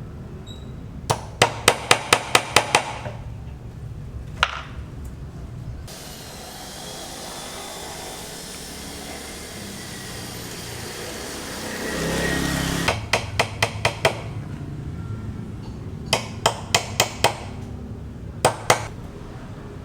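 Hammer blows on a building site, struck in quick runs of about half a dozen sharp, ringing hits, with a single blow and a pair between them. A stretch of steady hissing noise fills the middle, swelling briefly before the hammering resumes.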